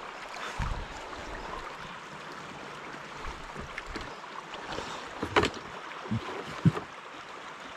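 River water rushing steadily, with a few sharp knocks about five to seven seconds in.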